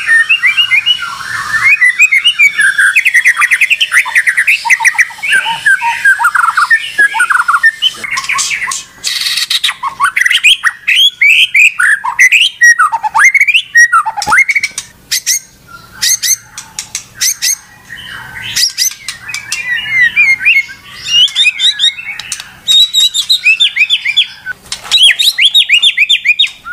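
White-rumped shama in full, non-stop song: a fast, varied stream of whistles, trills and sharp rattling clicks, with only brief pauses.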